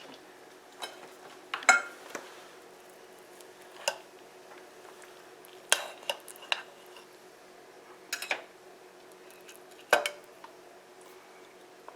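Serving utensils clinking and scraping against the slow cooker's crock and plates while chicken and stuffing are dished up: a handful of sharp clinks, irregularly spaced a second or two apart.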